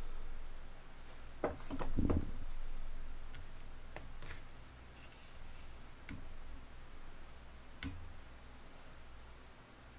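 Ladle knocking and scraping against a metal hot-pot pan as beef tripe stew is stirred: a few scattered clicks and knocks, the strongest about two seconds in, over a low steady hum.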